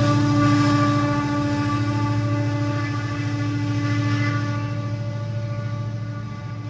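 Diesel freight locomotives of a coal train moving away from a grade crossing, heard from inside a car: a steady droning hum that slowly fades.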